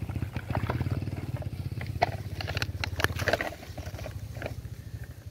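A low, pulsing engine-like rumble that fades near the end, over small plastic clicks and scrapes as toy trucks scoop and tip sand.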